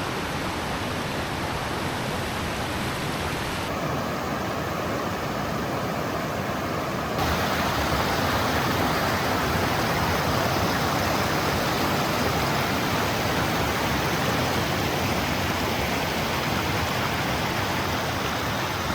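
Small cascading waterfalls on a creek, rushing water in a steady hiss. The sound changes abruptly twice and is a little louder from about seven seconds in.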